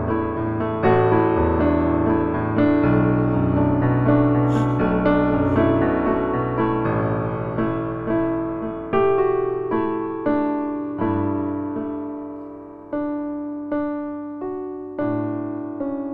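Background piano music, slow and gentle, with notes played more sparsely and left to ring out in the second half.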